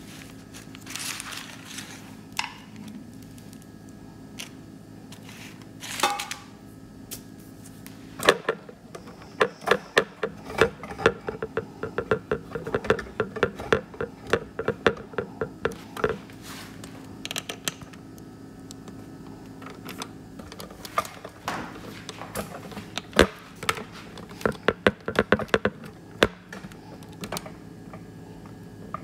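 A knife sawing through a freshly baked banana loaf with an oat-topped crust, in two long runs of quick, crisp strokes with crunching. A faint steady hum sits underneath.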